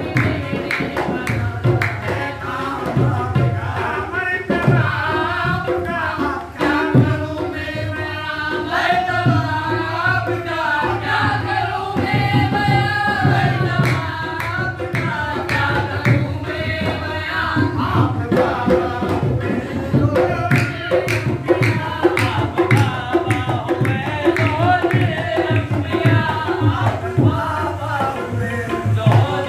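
Qawwali: men singing over harmonium drones, with a hand drum beating a steady rhythm.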